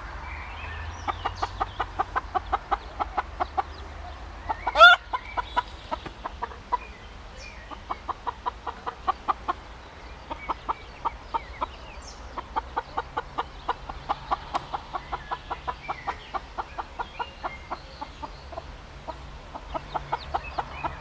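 Mother hen clucking in long, rapid runs of short clucks, about six a second, with brief pauses between runs. One louder, higher call stands out about five seconds in.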